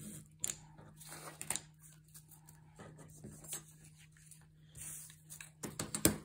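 Craft knife scoring book cloth along a metal T-square on a cutting mat, with short scrapes and clicks as the square is lifted and a metal ruler is laid down. A sharp clack about six seconds in is the loudest sound.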